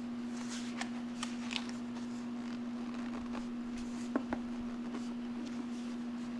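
Light clicks and scrapes of paper and plastic as the rolled edge of a poster is worked into a plastic poster-hanger strip by hand: a few small clicks in the first second and a half, two sharper ones about four seconds in. A steady low hum runs underneath.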